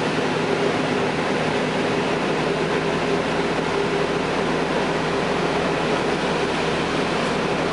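Cummins ISL9 diesel engine of a 2012 Gillig Low Floor bus running steadily, heard from inside the passenger cabin as a constant hum over road and cabin noise, with no change in pitch.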